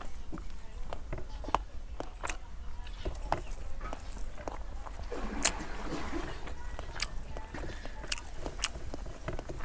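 Fingers mixing rice and curry on a stainless steel plate, with scattered sharp clicks and taps as fingers scrape the metal, over a low steady hum.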